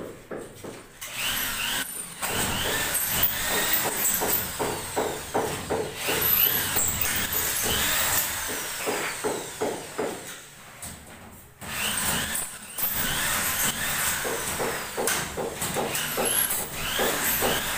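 Electric drill driving screws through ceiling board into a metal ceiling frame, in repeated short runs, with a pause of about a second around ten seconds in.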